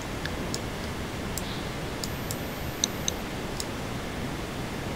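Steady hiss with scattered short, sharp clicks, two of them louder just under three seconds in: a computer mouse being clicked while brush strokes are painted.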